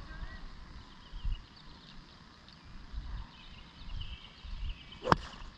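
A pitching wedge strikes a golf ball off the turf once, a single sharp click about five seconds in. Low gusts of wind rumble on the microphone around it.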